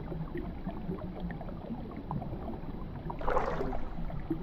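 Water moving around a wooden punt being poled along: soft gurgling with scattered small ticks, and a brief louder rush of water a little over three seconds in.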